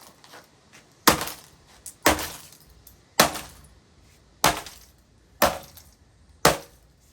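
Six hard blows, about one a second, smashing a computer, each a sharp crack with a short ringing tail.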